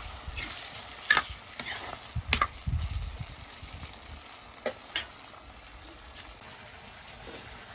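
Fish pieces frying in a two-handled steel wok, a steady sizzle, while a metal ladle stirs them and clinks sharply against the pan a few times in the first five seconds.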